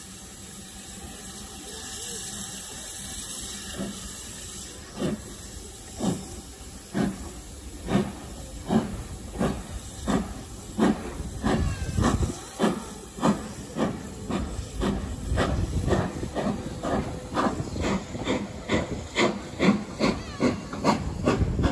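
Steam locomotive starting a train away: a steady hiss of steam, then exhaust chuffs from about five seconds in, at first about one a second and quickening to two or three a second as it gathers speed.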